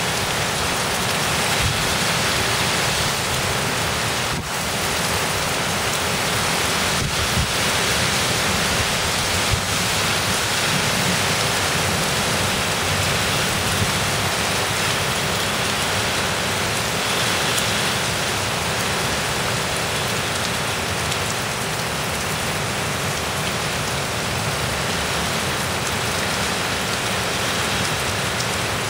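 Heavy, wind-driven rain pouring down in a severe thunderstorm: a steady, dense hiss of rain on surfaces.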